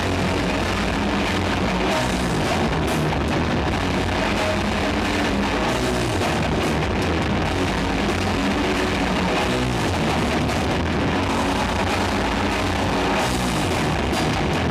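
Doom metal band playing live: electric guitars and a drum kit in a loud, dense, unbroken wall of sound.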